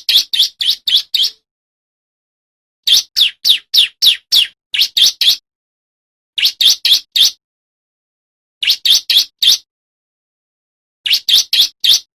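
Male bar-winged prinia (ciblek) singing loudly: rapid bursts of four to six sharp, downward-sweeping notes, repeated every two seconds or so with silence between.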